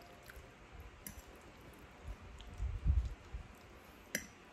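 Faint clicks of a metal fork against a plate as spaghetti is twirled, with a soft low thump about three seconds in and a sharper click near the end.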